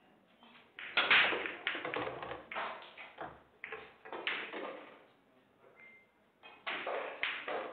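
A 9-ball break on a pool table: the cue ball cracks into the rack about a second in, then the balls clatter off each other and the cushions in a rapid run of clicks and knocks for a few seconds. A few more ball knocks come near the end.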